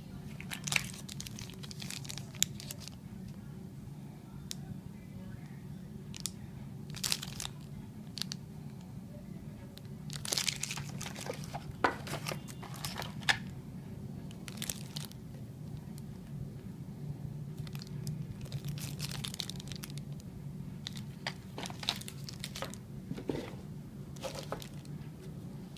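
Packaging being handled: plastic wrap crinkling and cardboard box parts rustling and clicking in short, scattered bursts, over a steady low hum.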